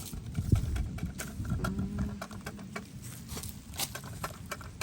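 Irregular light clicks, scuffs and a few dull thumps from a person moving about and handling things, with no speech.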